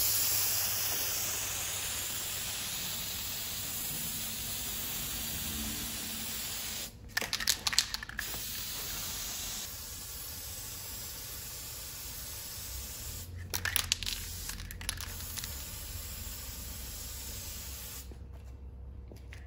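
Spray paint hissing in long steady bursts onto an onigawara roof tile as it is re-coated. Twice the hiss breaks off for a short rattle of clicks, and the spraying stops near the end.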